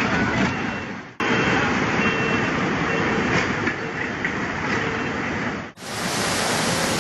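Steady rushing roar of floodwater, cut off abruptly twice, with faint short beeps in the middle stretch.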